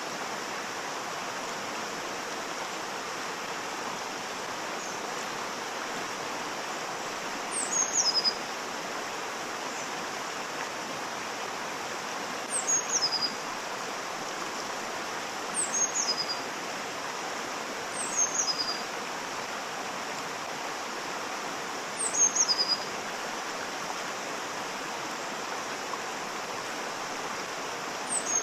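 Waterfall rushing steadily, with a bird repeating a short, high call that falls in pitch, about six times at intervals of a few seconds; the bird calls are the loudest sounds.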